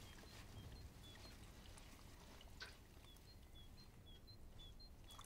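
Near silence: quiet background tone with faint, high two-note chirps repeating about four times a second, alternating between a higher and a lower pitch.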